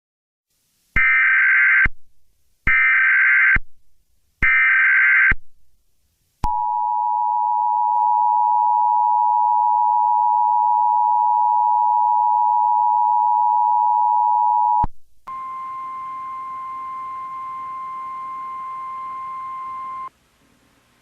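Emergency Alert System tones: three short bursts of SAME digital header data, then the two-tone EAS attention signal held steady for about eight seconds, then a single steady tone, the NOAA Weather Radio warning alarm, for about five seconds before it cuts off. The tones announce a tornado warning about to be read.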